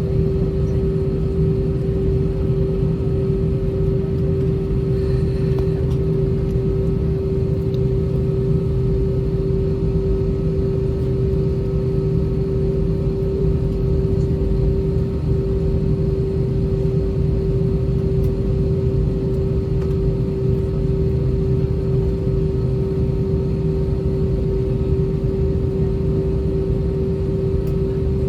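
Inside the cabin of an Airbus A320-232 taxiing, its IAE V2500 engines at idle: a steady low rumble with a constant hum tone above it.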